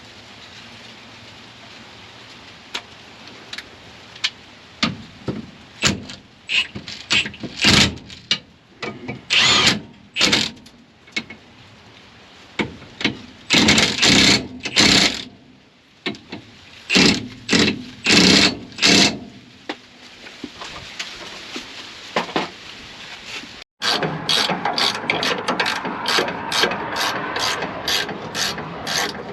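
Hand ratchet wrench tightening bolts: irregular spells of ratcheting strokes. After a sudden break about 24 seconds in, a quick, even run of strokes comes at about three to four a second.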